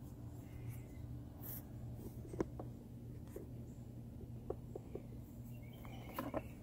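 Crinkling and rubbing of a foil tube of silicone sealant being squeezed and worked along a plastic airbox seam, with several light clicks and taps of the plastic box, the sharpest about two and a half seconds in, over a steady low hum.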